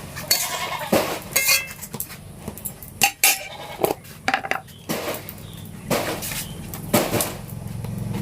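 Metal utensils clinking and scraping against a cooking pot: a string of sharp, irregular clinks. A short pitched cry is heard among them.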